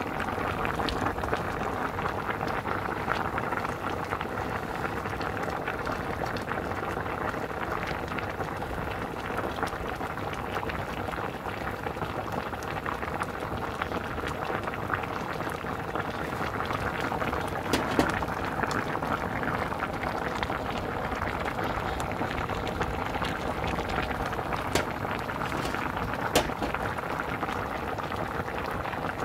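Spicy red broth with whole abalone boiling hard in a shallow pan: steady bubbling with many small pops, and a few louder pops in the second half.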